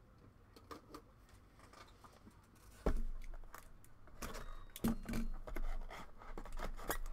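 Objects being handled on a table: faint clicks at first, then a sharp knock about three seconds in, followed by a run of irregular clicks and knocks.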